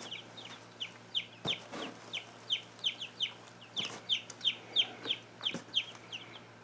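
Young chicks peeping: many short, high, downward-sliding peeps, a few each second. Several brief knocks sound in between.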